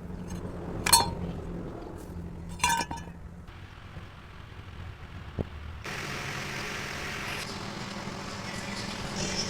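Two sharp metallic clinks with brief ringing, about a second in and near three seconds in, then a smaller knock. After about six seconds a steady mechanical hum with hiss sets in.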